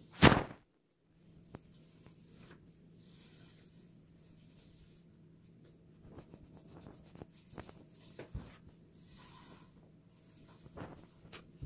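Kitchen handling sounds: a sharp knock just after the start, then soft scratchy brushing and rustling with scattered light taps, as pastry is worked by hand.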